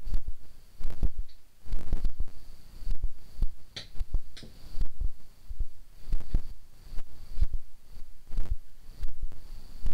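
Repeated dull, low thumps, one or two a second, with two short high squeaks about four seconds in.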